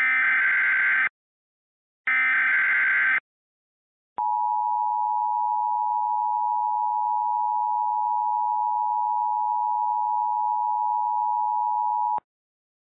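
Emergency Alert System tones. The last two of the three SAME header data bursts sound as harsh digital screeches about a second long, a second apart. Then the EAS two-tone attention signal sounds steadily for about eight seconds and cuts off abruptly, announcing a tornado warning.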